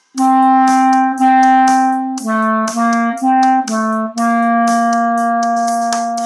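Clarinet playing a slow beginner phrase: two long notes, four quick notes, a long held note, then a short one (written D, D, B-C-D-B, C, B). A steady ticking beat runs under it, about two ticks a second.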